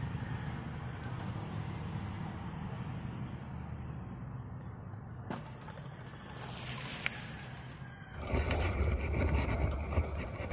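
Low steady rumble, then, about eight seconds in, a bicycle starts rolling over a leaf-covered dirt path, and its tyre and ground noise grows louder.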